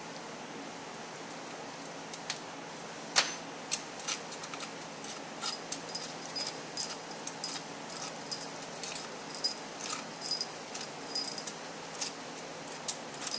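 Scattered light metallic clicks and small high pings as T27 Torx bolts are backed out of and lifted from the aluminium valve body of a ZF5HP24 automatic transmission, with one sharper click about three seconds in.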